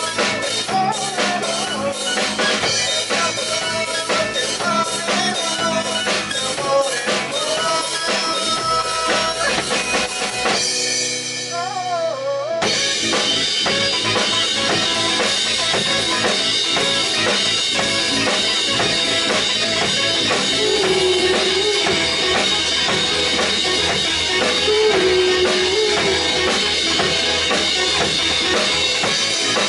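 A live rock band with drum kit, bass, guitar and keyboard playing an instrumental passage. The drums and bass drop out for about two seconds near the middle, then the full band comes back in.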